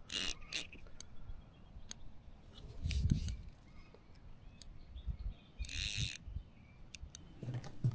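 Fishing reel's drag buzzing in short bursts, three times, as a hooked sea trout pulls line, with a dull thump about three seconds in. Faint bird chirps behind.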